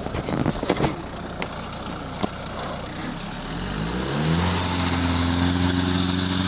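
Jeep Wrangler engine revving up about three seconds in, then running steadily under load as the Jeep climbs a rutted sandy slope. A few clicks come in the first second.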